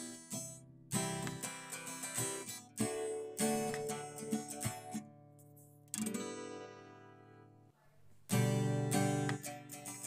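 Background music on a solo acoustic guitar: chords strummed one after another, each left to ring and fade. A longer chord dies away over about two seconds before a loud strum near the end.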